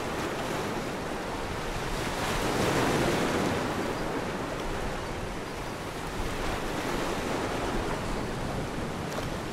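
Ocean waves washing in a steady rush, swelling louder about two to three seconds in.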